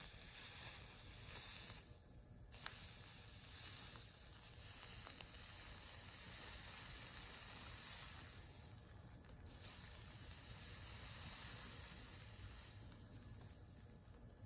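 Soldering iron melting solder along a copper-foiled stained-glass seam, with a faint sizzling hiss from the flux boiling under the tip. The sizzle breaks off briefly about two seconds in and again around nine seconds.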